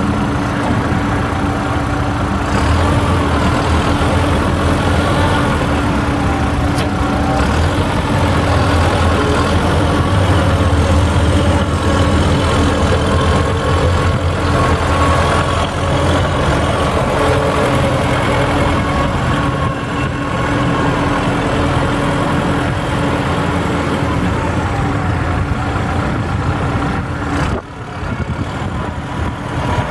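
1999 Ford New Holland TS100 tractor's turbocharged Genesis 5.0 L four-cylinder diesel engine running steadily as the tractor drives slowly and turns on gravel. The low rumble is stronger through the first two-thirds, and the sound dips briefly near the end.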